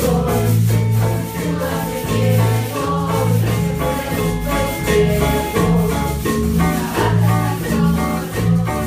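Student ensemble playing a Latin pop song live: voices singing into microphones over melodicas, a drum kit and hand drums, with a steady, repeating bass line.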